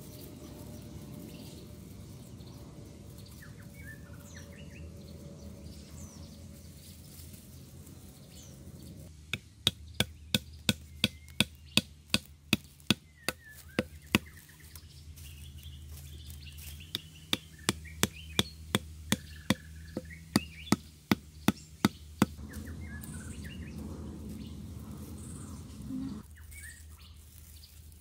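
Sharp knocks of a thick bamboo section pounding a small bamboo stake into the ground, in two runs of about two to three blows a second. Birds chirp in the background.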